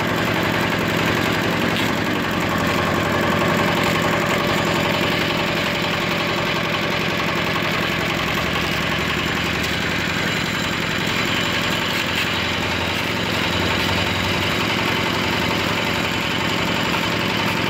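Engine of a concrete lift (lif cor) hoist machine running steadily at an even speed.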